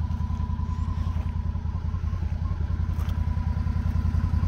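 Can-Am Defender Limited's V-twin engine running steadily at low revs with an even low pulse while the side-by-side crawls over rocks.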